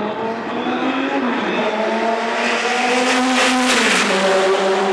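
Chrysler Viper GTS-R race car's V10 engine running at speed on track. Its note dips about a second and a half in, grows louder as the car comes close around three and a half seconds in, then drops in pitch as it goes by.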